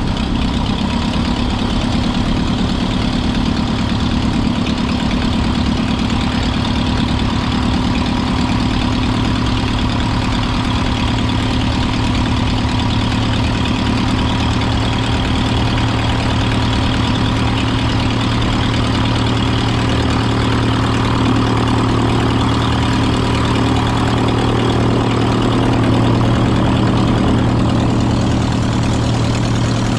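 RLU-1 Breezy homebuilt airplane's pusher engine and propeller running steadily at low power as it taxis, getting slightly louder about twenty-five seconds in.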